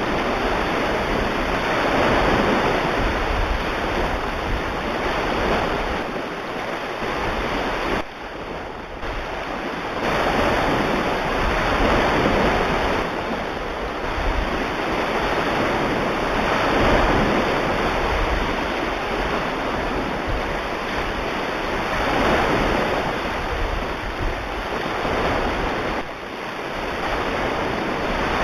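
Recorded ocean waves: a steady rush of surf that swells and falls back every few seconds.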